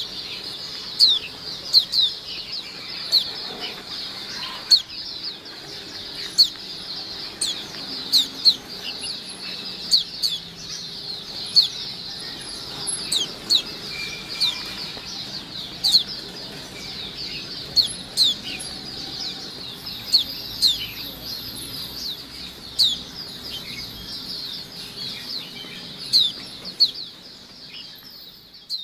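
A flock of white-eyes (pleci) twittering in a dense, continuous high chorus, with frequent sharp chirps that slide downward and stand out loudly above the rest. This is the busy flock call ('ombyokan gacor') of caged white-eyes.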